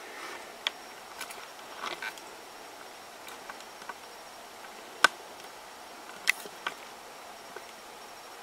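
A few light, scattered clicks and knocks from a camera tripod being handled and adjusted, the sharpest one about five seconds in.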